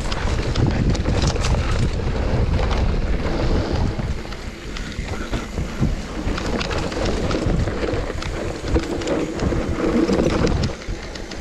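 Mountain bike rolling fast down a dirt trail: a steady rumble of wind on the microphone and tyres on dirt, with rattles and knocks from the bike over bumps.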